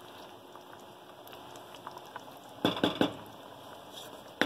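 Fish curry broth simmering in a wide pan, bubbling steadily. A wooden spoon knocks against the pan a couple of times about three seconds in, and once more near the end.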